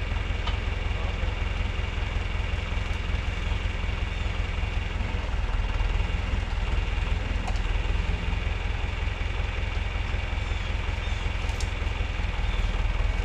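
Tractor engine running steadily, a constant low rumble with a steady hum above it.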